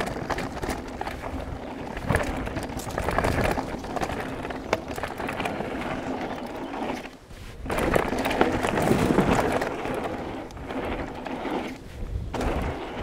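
Specialized Enduro full-suspension mountain bike ridden down a dirt trail: tyres rolling over the ground with the bike rattling and clattering over bumps. There is a short lull a little past halfway, then it gets louder again.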